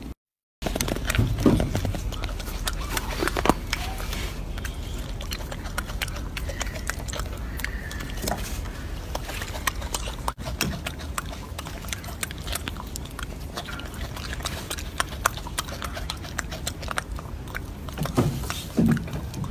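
Golden snub-nosed monkeys handling food close by: scattered small clicks and rustles over a steady low rumble like wind on the microphone.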